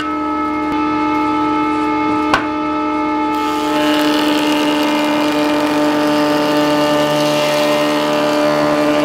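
Felder BF6/31 combination machine's table saw running with a steady hum while its blade rips lengthwise through a half-round applewood log on the sliding table. A sharp click comes a little after two seconds, and the cutting noise grows louder from about three seconds in.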